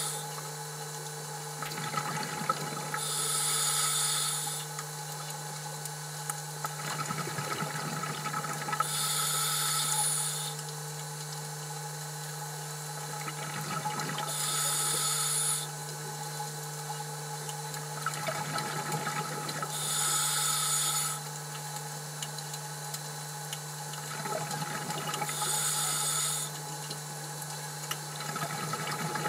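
Scuba diver breathing underwater through a regulator: a hiss on each breath and a burble of exhaust bubbles, five breaths about every five to six seconds, over a steady low hum.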